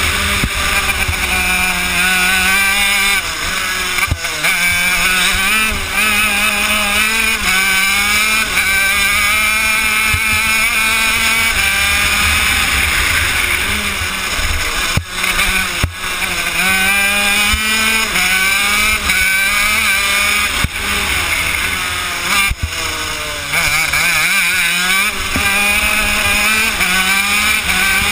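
Honda CR80 two-stroke engine of a shifter kart at racing speed, heard onboard, revving up and falling back over and over as the kart is driven through the corners, with a few brief dips where the throttle is lifted.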